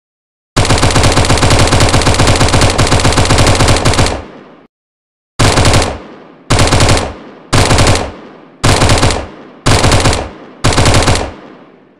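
Automatic gunfire sound effect: one long burst of rapid shots lasting about three seconds, then a pause, then six short bursts about a second apart, each trailing off in an echo.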